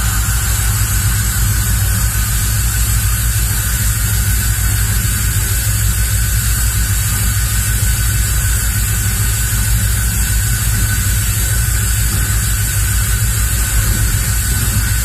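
Diesel locomotive engine running with a steady low drone as the train moves along the track, under a steady rushing noise from wind and rolling wheels.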